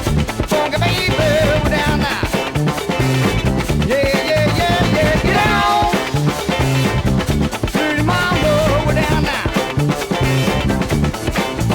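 Funk song in an instrumental stretch: a steady drum and bass groove under a pitched lead line that repeats a short riff about every two seconds.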